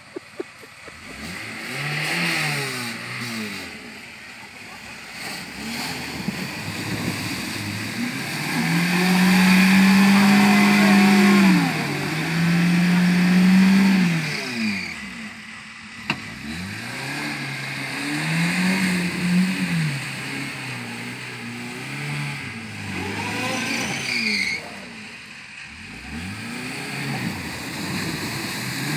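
Lada Niva's engine revving up and down again and again as the 4x4 churns through a muddy water-filled ditch, held at high revs for a few seconds near the middle, with water and mud splashing from the wheels.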